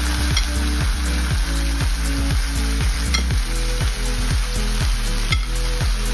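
Steaks sizzling in a hot oiled nonstick frying pan, over background music with a steady kick-drum beat.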